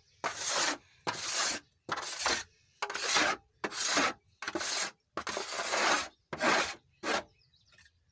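A small hand scraper rasping against the inside of a large metal pan in about nine even strokes, roughly one a second, scraping thickened palm jaggery (karupatti) syrup off the pan's sides; the strokes stop about seven seconds in.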